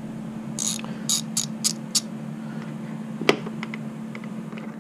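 Hand-tool work on a motorcycle: five short clicking rasps in quick succession, then a single sharp metallic click about three seconds in, over a steady low hum.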